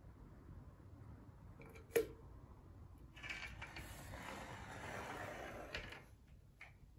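A caulking spatula dragged along a fresh bead of caulk where the glass meets the steel door frame, a rough scraping that lasts about three seconds from about three seconds in. A single sharp click comes about two seconds in.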